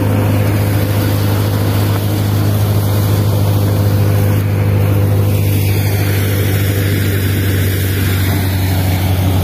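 Soybean threshing machine (punni machine) running steadily, a constant low drone with no change in speed.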